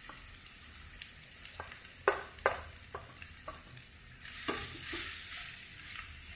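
Wooden spatula scraping boiled potato off a plate into a frying pan and stirring it, with several sharp taps and knocks against plate and pan, the loudest two about two seconds in. Under it, hot oil with spice paste sizzles with a steady hiss.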